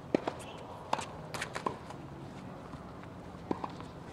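Tennis ball struck by rackets and bouncing on a hard court during a doubles point: a string of short, sharp pops, the loudest just after the start, a cluster about a second in, and a lone one about three and a half seconds in.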